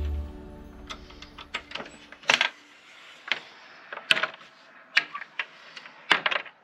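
Music fading out at the very start, then about a dozen light, irregularly spaced clicks and knocks, the loudest about two seconds in.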